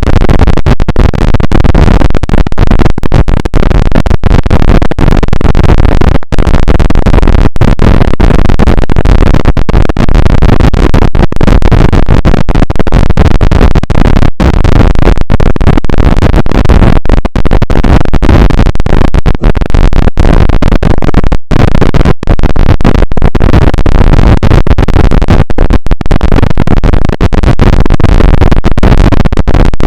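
Very loud, harsh distorted noise, heaviest in the deep bass, running almost without a break apart from many brief cut-outs.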